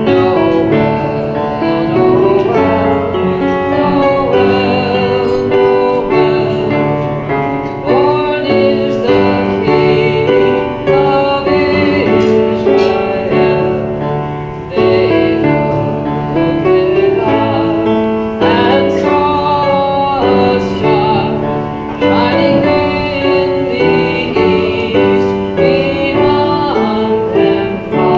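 A roomful of voices singing a Christmas carol together with piano accompaniment.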